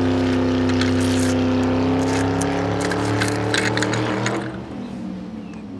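A steady engine-like motor hum goes with a toy quad bike as it rolls over puffed corn snacks on gritty pavement. Crackling crunches come as the snacks are crushed under its wheels. The hum fades out after about four seconds.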